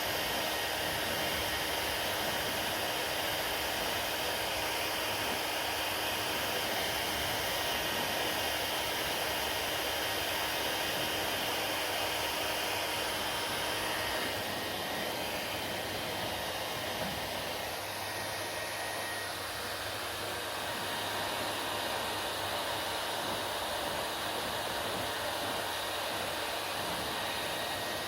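Hair dryer running steadily: a continuous blowing rush with faint steady tones, its sound shifting slightly about halfway through.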